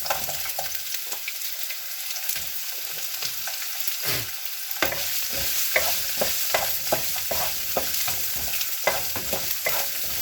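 Sliced celery and garlic sizzling in hot oil as they are stir-fried, with a utensil repeatedly scraping and clacking against the pan.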